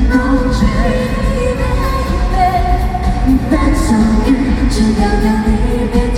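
Live pop music: a voice singing over the band, with a steady bass underneath.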